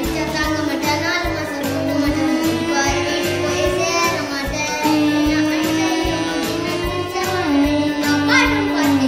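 Background music with a steady beat and a held melody line.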